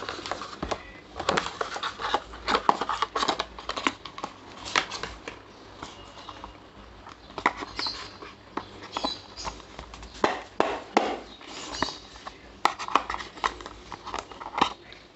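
Hands handling a cardboard earbud box and its paper inserts: irregular rustling, tapping and scraping with scattered sharp clicks.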